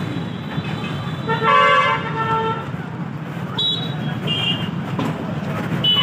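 Street traffic with vehicle horns honking over a steady low rumble of engines. One horn sounds for about a second, two short higher beeps follow, and another horn starts near the end.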